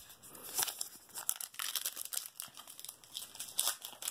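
Wrapper of a trading card pack crinkling and tearing as the pack is handled and ripped open: a run of irregular crackles that grows louder about half a second in.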